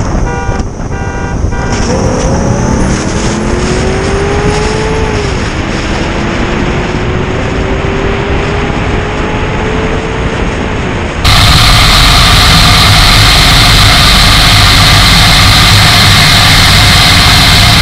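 V8 car engine pulling hard at full throttle from a highway roll: the pitch climbs, drops at an upshift about five seconds in, climbs again and falls off as the throttle is lifted. About eleven seconds in it switches abruptly to a loud, steady rushing roar.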